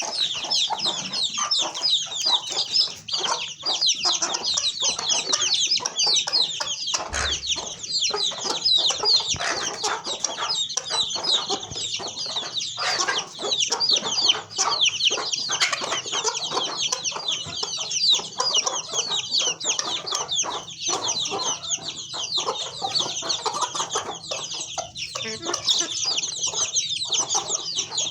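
A large flock of chickens in a poultry house calling all at once: a dense, continuous din of high-pitched chirping over lower clucking.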